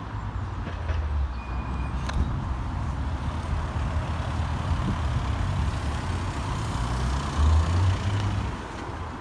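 Road traffic going by: a steady low rumble and tyre hiss, swelling louder with a passing vehicle near the end.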